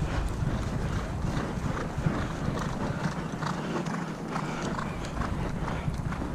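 Hoofbeats of a retired racehorse, irregular clops about three a second, over the low rumble of wind on the microphone.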